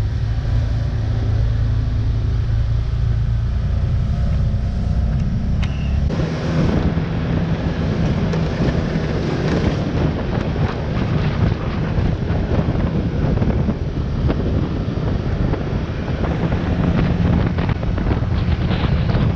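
A vehicle's engine rumbling steadily. About six seconds in, rough wind noise on the microphone takes over.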